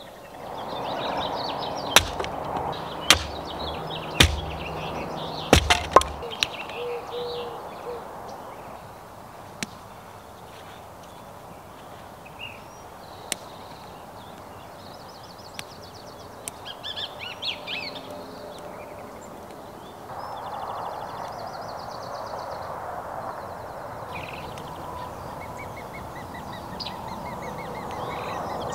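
Wild birds singing and calling, with chirps and fast trills from several birds, over a steady outdoor rush. A handful of sharp clicks or knocks land in the first six seconds.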